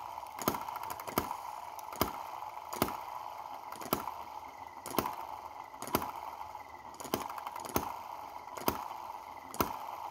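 Miniature brass single-cylinder four-stroke petrol model engine running slowly and evenly: a sharp beat a little more than once a second over a steady whir.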